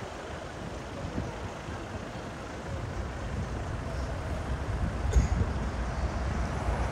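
City street traffic: vehicles passing with a steady low rumble that grows louder toward the end, and a brief thud about five seconds in.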